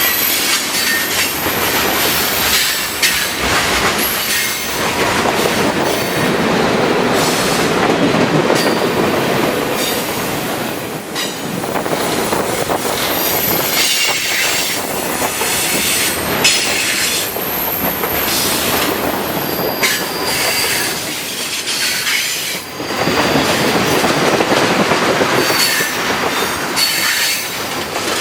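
CSX freight train cars rolling past close by: a steady rumble and clatter of wheels on the rails, with high wheel squeal that comes and goes.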